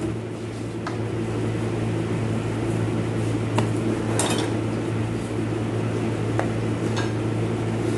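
Scattered light metallic clinks and knocks of tools and automatic-transmission parts being handled, the loudest a short rattle about four seconds in, over a steady low hum.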